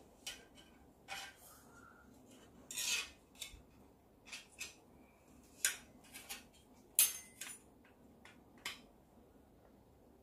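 Black frame parts of a 1/14-scale RC semi-trailer kit clicking and knocking against each other as they are handled and fitted, about a dozen sharp clicks at irregular intervals. The loudest come about three and seven seconds in.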